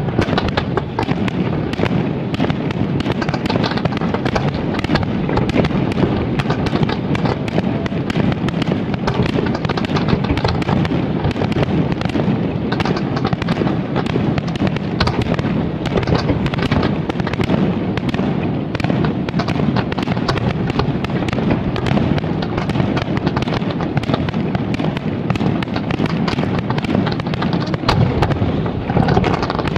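Aerial fireworks going off without a break: many sharp bangs and crackles overlapping in a dense, steady stream.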